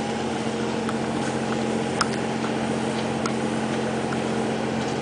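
A riverboat's engine running with a steady low drone over a wash of wind and water noise, while the boat manoeuvres to get under way forward. A faint click comes about two seconds in.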